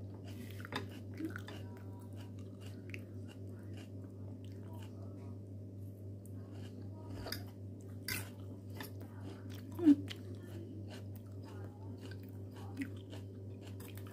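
A person chewing a mouthful of crisp lettuce and apple salad close to the microphone, a run of small wet crunches, over a steady low hum. One louder click or knock about two-thirds of the way through.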